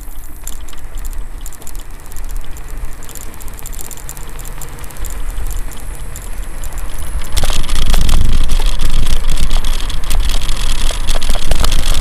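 Bicycle coasting fast downhill on a concrete sidewalk: wind rushing over the microphone and tyre rumble, growing louder as speed builds and jumping sharply louder about seven seconds in, with many quick clicks and rattles.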